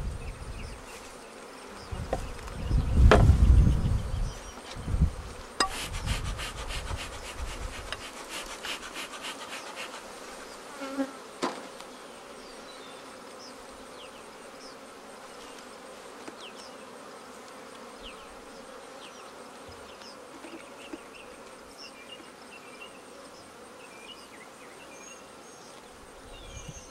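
Honey bees buzzing around an opened hive, with short buzzes of single bees flying close by. Early on come loud low knocks from handling the hive parts, then a quick run of clicking and rattling for a few seconds.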